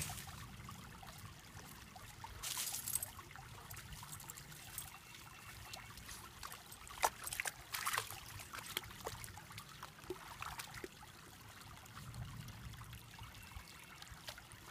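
Shallow woodland stream trickling over stones, a steady low water sound, with a few brief splashes as puppies' paws move in the water.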